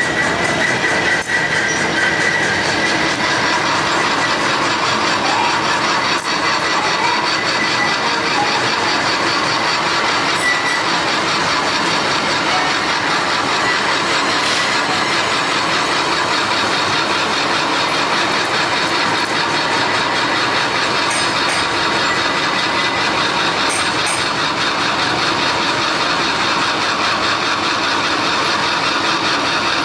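Metal lathe running steadily while a cutting tool turns the steel end of a crankshaft, an even machine noise with a faint steady whine.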